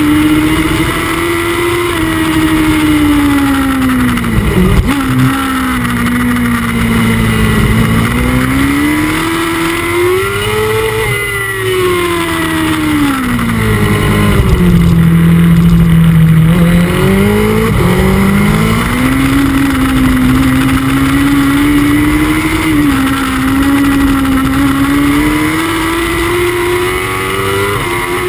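Honda CBR1000RR superbike's inline-four engine, heard from an onboard camera at racing speed. The revs climb and fall repeatedly through acceleration, braking and gear changes, with a sharp dip about five seconds in, over a steady rush of wind.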